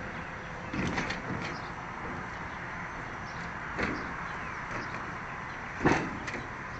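Footsteps and knocks on a ribbed metal roof deck: a few separate thumps over a steady background noise, the loudest one near the end.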